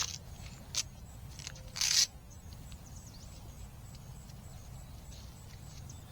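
Footsteps on a trail: two brief crunching steps, about one and two seconds in, then a quieter stretch of faint outdoor background.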